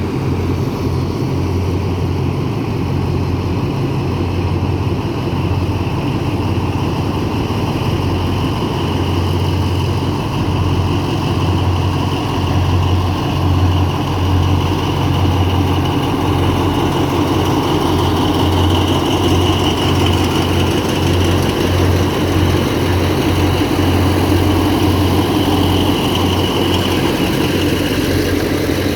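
Diesel engines of TCDD DE24000-class diesel-electric locomotives running at a steady, even level with a deep hum.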